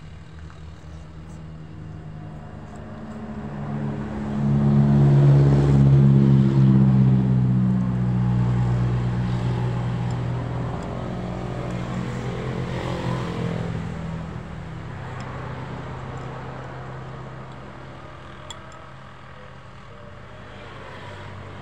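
A motor vehicle's engine passing on the road. Its low hum builds over a few seconds, is loudest about five seconds in, then slowly fades away.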